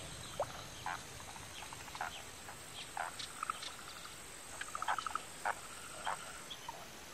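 Night forest ambience: frogs giving scattered short chirps and quick rattling trills, over a steady high insect drone.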